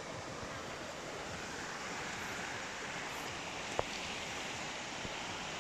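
Steady rushing of a swollen, fast-flowing river, with a single sharp click a little before four seconds in.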